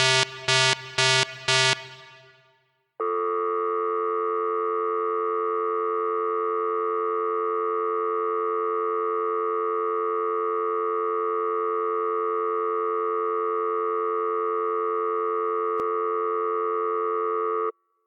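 Electronic alarm beeping about two and a half times a second, dying away about two seconds in. After a brief gap, a steady, buzzy electronic tone sounds for about fifteen seconds and then cuts off suddenly.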